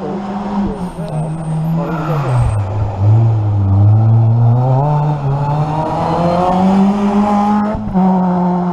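Rally car engine pulling hard up a hill stage. The revs drop about two seconds in, then climb in one long steady rise, break briefly near the end, and hold high.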